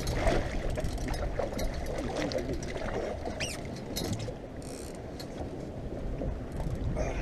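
Water splashing and sloshing at the side of a boat as a hooked fish is pulled to the hull, with scattered clicks and knocks of fishing line and gear being handled.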